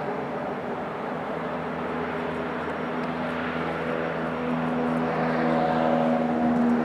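Steady drone of a distant engine, with a hum of several pitches under a rushing noise, growing a little louder from about five seconds in.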